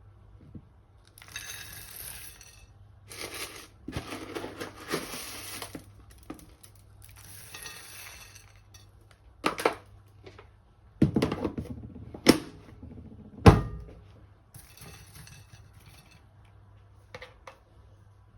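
Kitchen dishes and utensils being handled: scraping and rustling at first, then several sharp clinks and knocks, the loudest a little past the middle.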